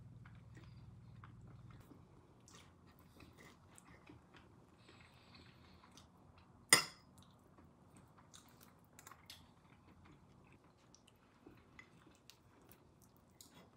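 Knife and fork cutting through crusty sourdough toast on a ceramic plate, with one sharp clink of cutlery against the plate about seven seconds in, then light crunching and small scraping ticks.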